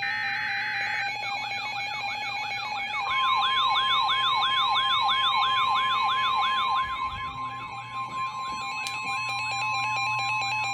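Two Emergency Alert System broadcasts overlapping. The buzzing digital header bursts end about a second in and give way to a warbling, siren-like alert tone that sweeps up and down about three and a half times a second. About three seconds in, a steady single-pitch alert tone joins it, typical of the NOAA Weather Radio warning tone. The warble grows quieter in the second half.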